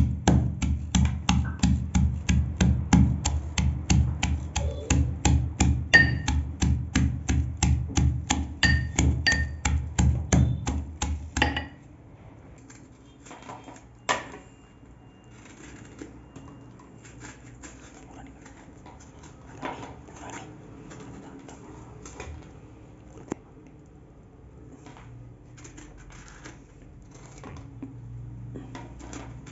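Steel pestle pounding in a steel mortar, a steady beat of about three or four sharp metal strikes a second, which stops about twelve seconds in. After that come faint scraping and occasional clicks of a knife peeling and cutting a large citrus fruit over a steel plate.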